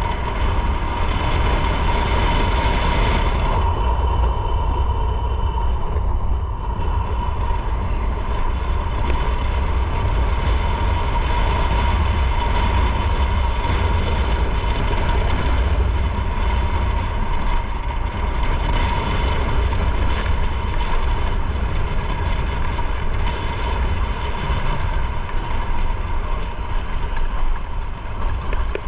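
Motorcycle riding along with its engine running, heavy wind rumble on the microphone, and a steady high whine.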